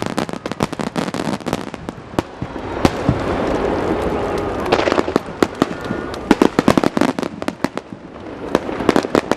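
Aerial fireworks display: rapid popping and crackling of many bursting shells. It swells into a continuous crackle about three to four seconds in, then breaks into rapid separate pops again.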